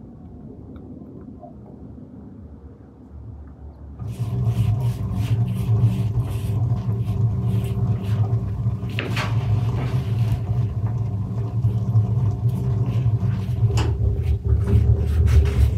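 A loud, steady low rumble sets in about four seconds in, over a run of light, quick clicks and taps from a silicone pastry brush spreading butter over thin dough on a wooden board.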